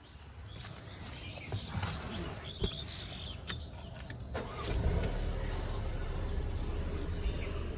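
A Mercedes-Benz C200 coupe's 2.0-litre turbocharged four-cylinder engine is started by push button about four seconds in, catching at once and settling into a steady idle. A few clicks and knocks come before it.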